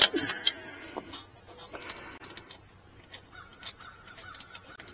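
Sharp metallic click, then small clicks and taps of a wrench working the carburetor float-bowl drain screw. From about three seconds in, a faint bird call repeats in short notes.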